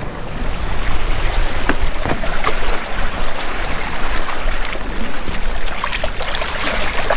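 Seawater washing and trickling among shoreline rocks and rock pools, a steady rushing noise with scattered small clicks and splashes.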